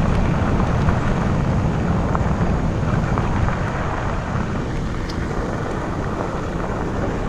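Wind buffeting the microphone of a rider on a fast-moving e-bike, a steady low rumble that eases off slightly toward the end.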